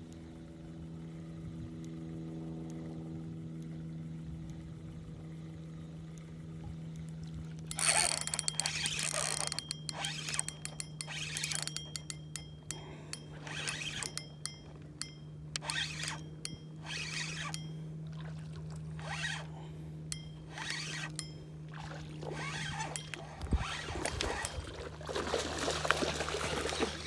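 A boat motor hums steadily underneath. About eight seconds in, irregular bursts of fishing-reel cranking and water splashing begin: a trout being reeled in to the boat.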